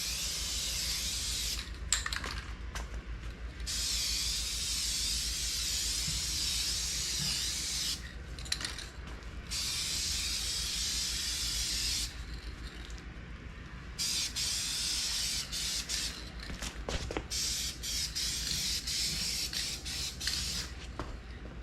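Aerosol rattle can of Duplicolor Perfect Match automotive paint spraying the base coat in several long passes of a few seconds each. Short pauses between the passes hold a few light clicks.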